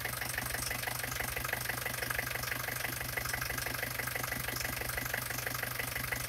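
Renault Master's 2.8 TD S9W four-cylinder turbodiesel idling steadily, with a regular rhythmic beat and no change in speed.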